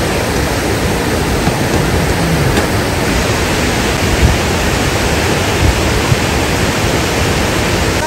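Whitewater rapids of a mountain river rushing over boulders: a loud, steady roar of water.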